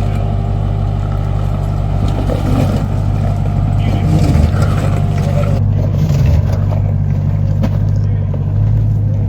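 Pickup truck engine running at low, steady revs with a constant low drone as the truck crawls slowly over rocks.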